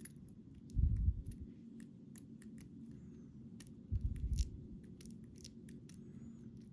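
Scattered light metallic clicks and ticks from working a stuck pin-tumbler lock cylinder that won't turn back, with two dull bumps, about a second in and about four seconds in, from the lock being handled.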